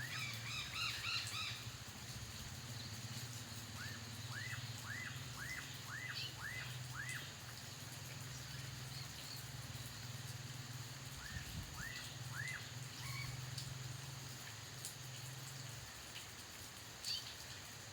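Black-capped donacobius calling: a quick burst of chirps at the start, then a series of six or seven rising-and-falling whistled notes, about two a second, and three more in the middle. A low steady hum runs underneath and stops near the end.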